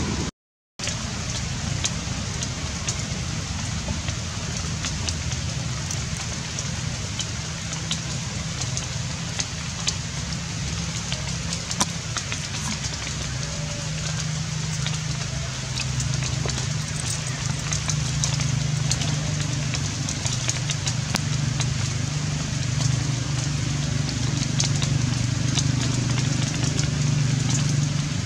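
Steady outdoor background noise: a low hum that grows louder in the second half, over a faint crackling hiss. The sound drops out completely for about half a second just after the start.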